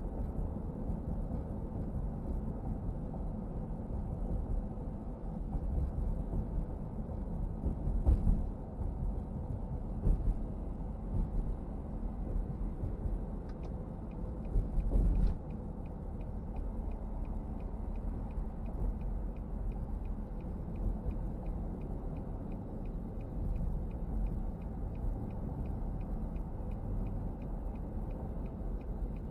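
Car driving on city streets: a steady low road and engine rumble with a few louder bumps. A regular light ticking runs through the second half.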